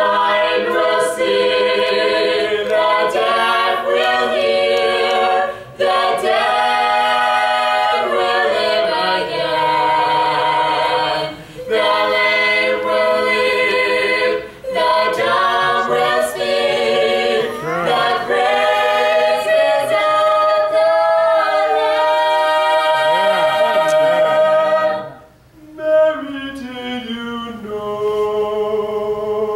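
Three voices, a man and two women, singing a cappella in harmony through microphones, phrase by phrase with short breaks between. After a brief pause near the end the singing carries on more softly.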